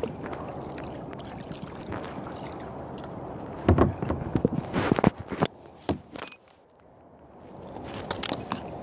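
Kayak paddling on calm water: steady water wash and drips, with a run of sharp knocks and splashes about four to five seconds in.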